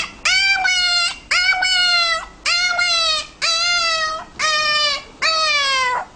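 A pet animal calls six times in a row, about once a second. Each call is a drawn-out, whining cry just under a second long, holding its pitch or sliding slightly down.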